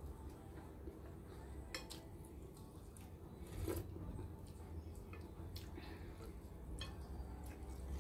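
A metal spoon clinking against a ceramic plate a few times, faintly, with the sharpest clink about halfway through, over a low steady hum.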